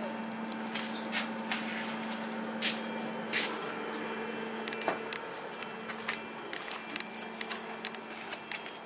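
Scattered footsteps and small knocks, irregular and short, over a steady low electrical hum.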